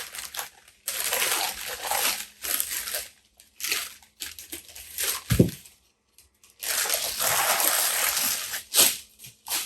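Rustling and crinkling of wrapping being pulled off a camera by hand, in several stretches with short pauses, and a dull bump about halfway through.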